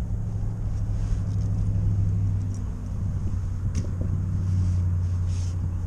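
A steady low rumble, with a few light clicks and rustles about four and five seconds in as a bass is handled out of a landing net.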